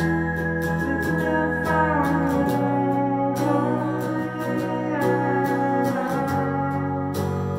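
Electric guitar and keyboard playing a song together, the keyboard holding sustained chords that change about two and a half seconds in and again near six seconds, with regular guitar strokes over them.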